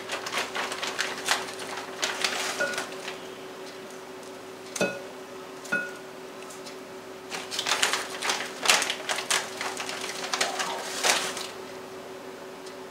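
Kitchen scissors snipping partly frozen chicken strips: two runs of quick, crisp cuts, with two short clinks in the pause between them.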